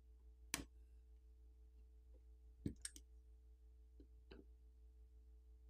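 Four small, sharp clicks spread over a few seconds as a metal pry tool pops the press-fit flex cable and coaxial antenna connectors off a smartphone's sub-board, over a faint steady hum.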